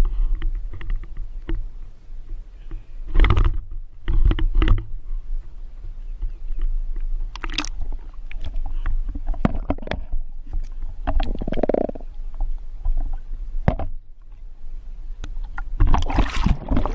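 Action camera in its waterproof housing being handled and dunked in pond water. A steady muffled rumble carries sharp knocks, short gurgling bursts and a louder burst of noise near the end.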